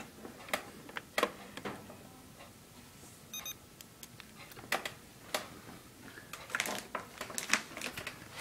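Digital camera being handled to take still pictures: scattered sharp clicks and knocks, with a short run of high electronic beeps about three and a half seconds in.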